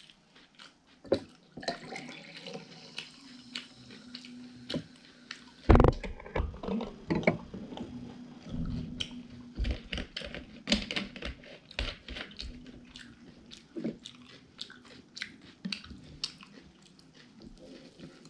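Close-miked chewing and wet mouth sounds of a person eating pancakes, with many small clicks throughout. One loud thump comes about six seconds in.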